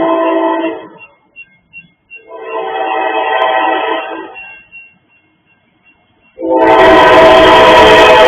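Diesel locomotive air horn blowing its grade-crossing warning: a long blast that ends about a second in, a second long blast, then a much louder one about six seconds in as the locomotive reaches the crossing, joined by the heavy rumble of engine and wheels. A crossing-signal bell dings steadily in the gaps between blasts.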